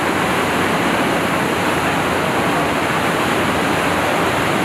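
Water pouring from a large pipe into a tiled pool, churning and foaming in a steady rush: the flooding of a tank-crew underwater-escape training simulator.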